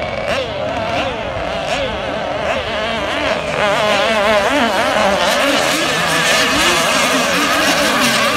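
Engines of several radio-controlled racing boats buzzing at speed, their pitches wavering up and down against one another. They get louder about three and a half seconds in as boats run close by.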